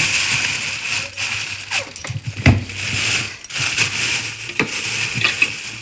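Rustling of plastic bags and vegetables being handled, with several light knocks and clatters.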